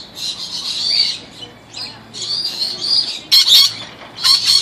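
Rainbow lorikeets calling: a continuous run of shrill, high chattering calls, loudest about three and a half seconds in and again near the end.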